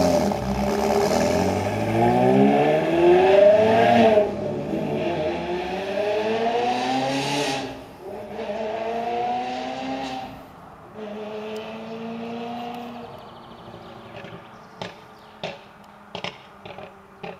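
Ferrari engine accelerating hard through the gears, its pitch climbing with a drop at a gear change about four seconds in, then fainter as it pulls away into the distance. Near the end come several sharp exhaust pops: backfires.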